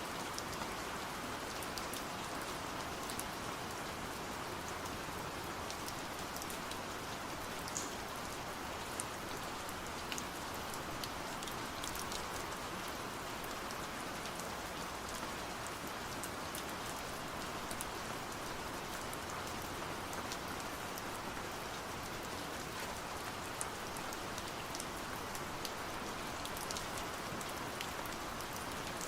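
Steady autumn rain falling on a surface, an even hiss with scattered individual drop ticks.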